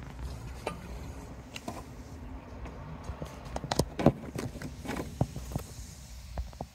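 Handling noise from a handheld camera moved about under a car: irregular clicks and knocks, densest about three and a half to four seconds in, over a low rumble.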